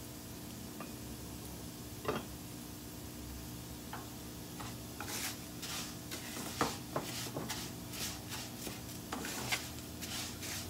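Raw rice being browned in a nonstick skillet, stirred and turned with a plastic spoon: the grains rustle and the spoon scrapes the pan. There are a few separate strokes at first, and steady stirring strokes from about halfway.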